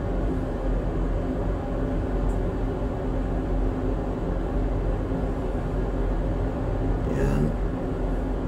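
Pork pieces frying in an aluminium pot on a stove, heard as a steady low rumble. A short rising tone comes in near the end.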